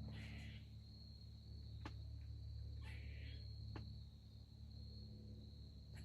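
Insects in the woods keeping up one steady, high-pitched continuous note, with a faint low hum beneath and a couple of soft clicks about two and four seconds in.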